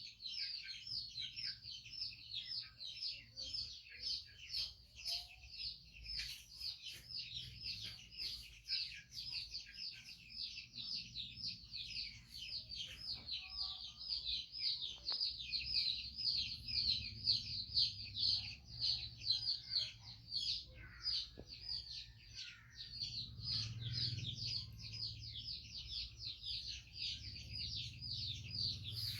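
Bird chirping steadily and rapidly, about four or five short chirps a second, each falling slightly in pitch, with a faint low hum underneath.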